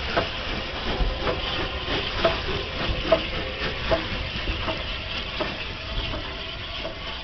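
Bulleid Battle of Britain class steam locomotive 34067 Tangmere moving slowly as a light engine, with a steady hiss of steam and sharp metallic clanks about once a second from the wheels on the track.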